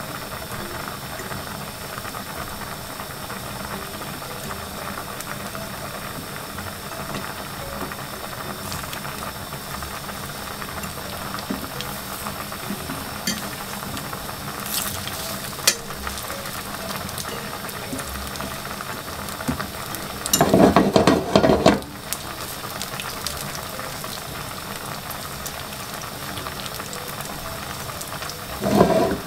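Plantain slices sizzling steadily in shallow oil in a frying pan, with a fork now and then clicking against the pan as the slices are turned. A louder burst of noise lasts about a second and a half about two-thirds of the way in.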